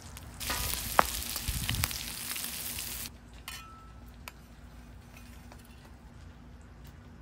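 Chopped beef and melted cheese sizzling loudly on a flat-top griddle, with a sharp click about a second in. The sizzle cuts off about three seconds in, leaving only a few faint ticks.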